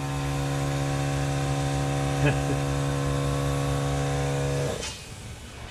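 Plasma cutter running steadily as it cuts through the steel truck frame, an even electric buzz that cuts off suddenly near the end as the trigger is released.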